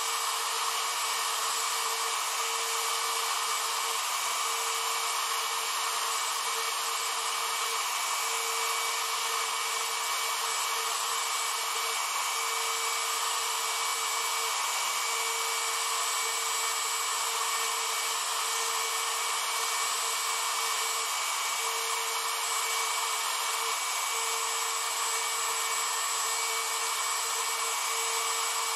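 Spindle of a Sidewinder CNC router running at speed while its bit engraves lettering into a board: a steady whine and hiss that holds the same pitch and level throughout.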